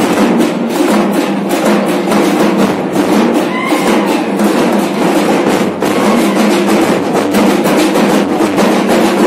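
A street drum troupe playing large bass drums and smaller side drums together in a fast, steady, loud beat.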